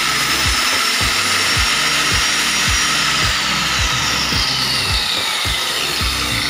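Handheld electric circular saw running as it cuts along a laminated cabinet board, a steady high whine and hiss, its pitch dropping in the second half as the blade works through the board.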